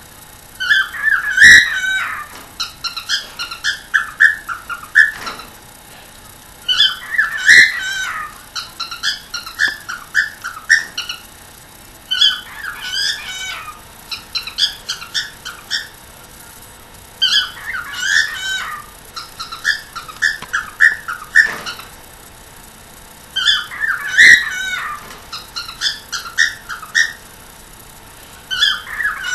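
A cockatiel chattering and warbling in repeated bouts of a few seconds each, with short pauses between them.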